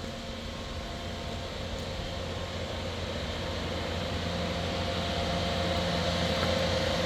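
A machine's engine running steadily, a hum with a few held tones that grows gradually louder.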